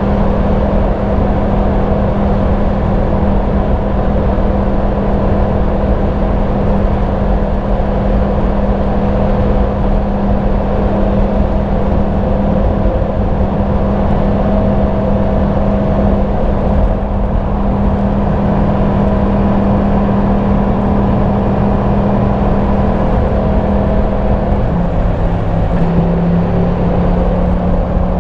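Yamaha MT-10 SP's crossplane inline-four engine through its stock exhaust, running steadily while cruising at a constant speed. Its pitch drops slightly near the end as the revs ease.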